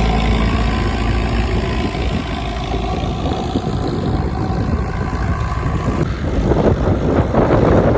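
Vintage tractor engine running while ploughing, with wind buffeting the microphone from about six seconds in.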